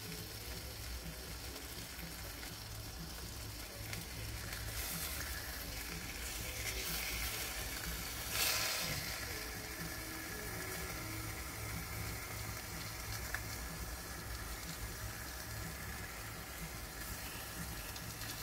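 Bacon frying in a pan on a camping stove: a steady sizzle that swells louder for a moment about eight seconds in.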